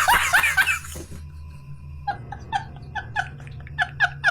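Horse whinnying: a loud, pitched call made of rapid pulses that fall away about a second in. Then a quieter, even series of short ringing pulses, about four a second.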